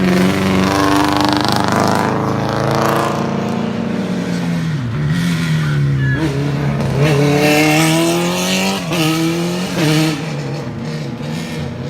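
Competition car engine revving hard on a hillclimb run, its pitch climbing under acceleration and dropping sharply several times as it shifts gear.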